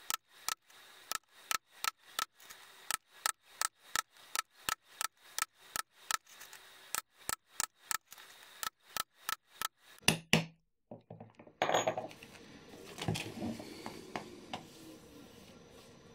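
A hammer taps a thin metal hole punch through a paper pattern into leather in steady, ringing strikes, about three a second. The strikes stop about ten seconds in. After a short gap comes the rustle of the paper pattern and leather being handled.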